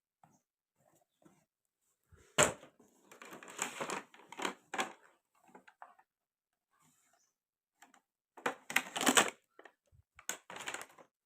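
Small plastic toy pieces and packaging being handled. A sharp click comes about two seconds in, followed by a spell of rustling and clattering, and another cluster of clicks and rustles comes near the end.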